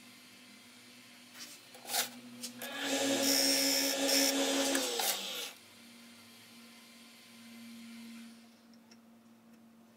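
Wood lathe starting up and running for about two and a half seconds with a hiss as a pencil is held against the spinning wooden blank, then switched off and spinning down with a falling tone. A few clicks come just before it starts, and a faint steady hum sits underneath.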